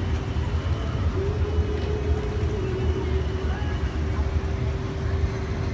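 Steady low rumble of background noise with a constant hum.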